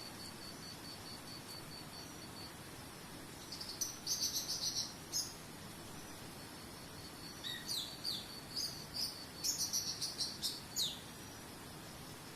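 Birds chirping in two quick clusters of high chirps and short falling notes, over a steady low background hiss. Early on, a cricket-like pulsed high trill runs on its own and stops after about two seconds.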